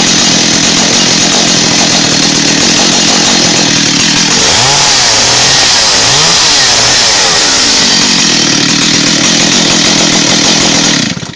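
Stihl 034 chainsaw's single-cylinder two-stroke engine running loud and fast, its pitch dipping and rising twice around the middle, then the sound cuts off suddenly near the end.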